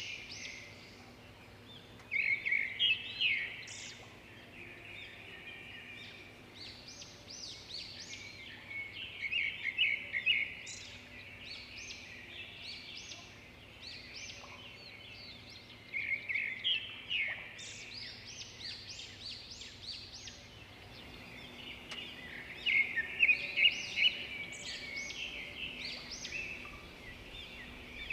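Birds chirping in rapid bursts of high calls that come back every six or seven seconds, with softer chirping between the bursts.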